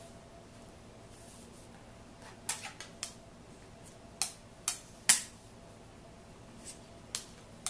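Bone folder creasing a paper napkin against a hard tabletop: a run of short, sharp scrapes and taps starting about two and a half seconds in, the loudest about halfway.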